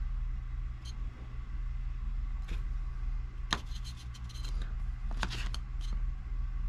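Small clicks and scrapes of a spinning reel and its removed spool being handled: a few single clicks, then quick clusters of light ticks a little past halfway, over a steady low hum.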